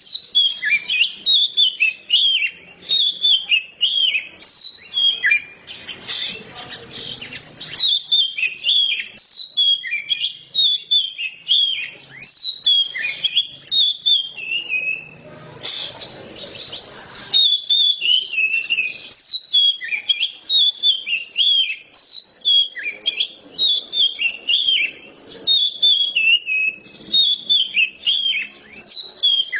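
Oriental magpie-robin (kacer) singing in full voice: a continuous, varied song of quick, sliding whistled notes, delivered in long, nearly unbroken phrases.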